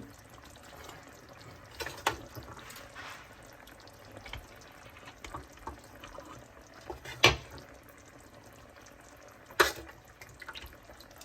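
Quiet kitchen background with three sharp clinks of kitchenware, spread through.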